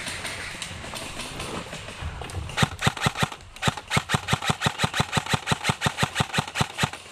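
Krytac Trident MK-II CRB airsoft electric rifle firing: a quick run of about half a dozen shots, a short pause, then a steady string of rapid shots at about six a second that stops near the end.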